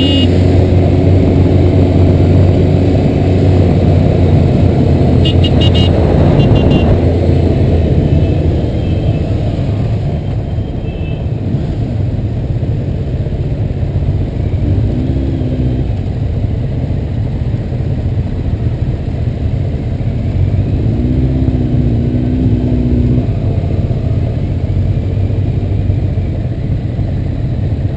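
Motorcycle engines running together in a group ride, a steady low rumble, with short horn toots now and then.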